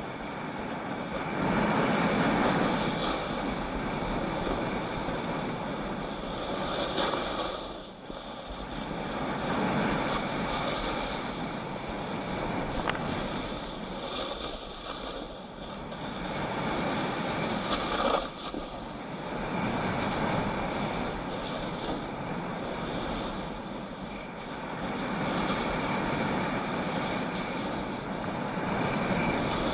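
Edges scraping and hissing across packed snow through a series of carving turns, each turn swelling the sound and then easing off every few seconds, with wind rushing over the camera microphone.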